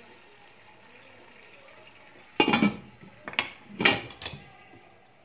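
Wooden spatula stirring and scraping onions and tomatoes against the bottom of a pot, with three loud scrapes in the second half, over a faint sizzle of the vegetables frying in oil.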